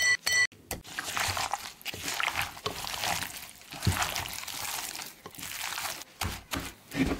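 Two short ringing taps, then gloved hands squeezing and turning raw chicken wings in a thick yoghurt-and-spice marinade in a glass bowl: wet squelching and glove crinkling, with a dull knock about four seconds in.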